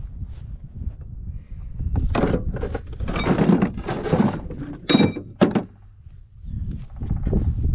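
Wind buffeting the microphone, with rustling and clattering, then two sharp metallic clinks with a brief ring about five seconds in.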